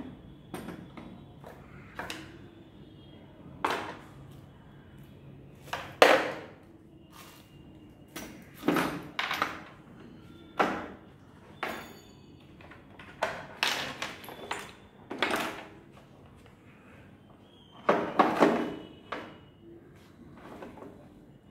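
Parts and packaging of a power-drill kit being handled and set down: an irregular run of about a dozen knocks, clicks and rustles. The loudest knock comes about six seconds in, and a longer rustling cluster comes late on.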